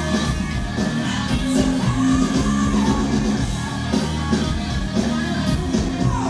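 Live rock band playing loud on stage: electric guitar, bass and drums, with a male singer's voice and sliding notes falling in pitch.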